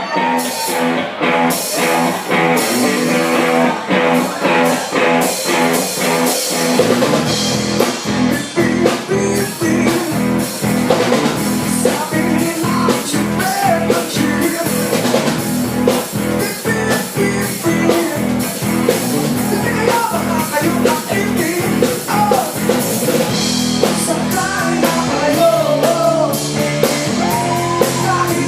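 Rock band music with electric guitar and drum kit playing a steady beat; the bass and fuller drums come in about seven seconds in.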